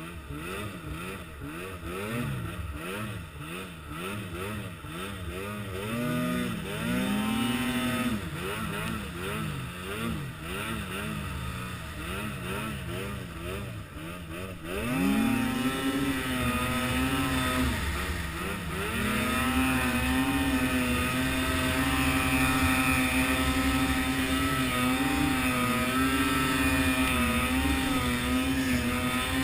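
A vehicle engine revving up and down repeatedly, then held at a steady high rev from about halfway through.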